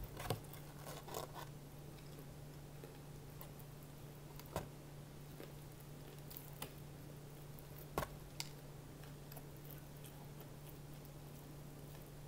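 Crispy fried chicken being pulled apart by hand: a few faint crackles and short sharp clicks, the loudest about eight seconds in, over a steady low hum.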